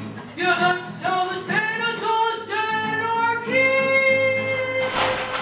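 A voice singing the closing phrase of a live song, ending on one long held note. Clapping breaks out near the end.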